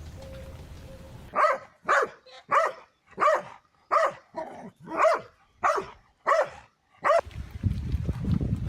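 A dog barking about ten times in a steady series, each bark short and pitched, well under a second apart. Near the end a low rushing noise comes in.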